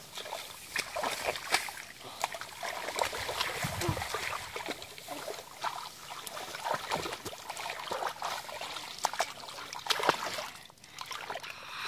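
Shallow muddy water sloshing and splashing irregularly as a person wades and moves their hands through it.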